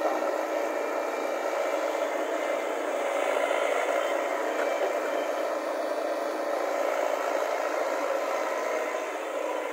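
JCB JS140 tracked excavator's diesel engine running steadily as it works its boom and bucket.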